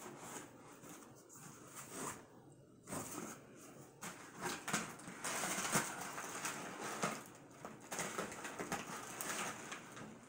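Crumpled brown kraft packing paper rustling and crinkling as it is pulled out of a cardboard box, irregular and busier after the first few seconds.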